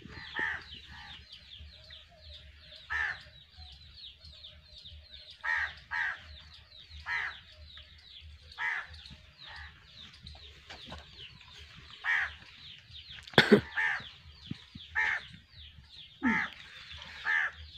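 Birds calling: short, loud calls recurring every second or so over a constant high twittering of many small birds, with one louder, sharper call about three-quarters of the way through.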